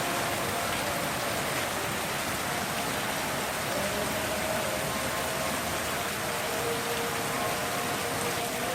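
Steady rain falling, an even continuous hiss of heavy rainfall.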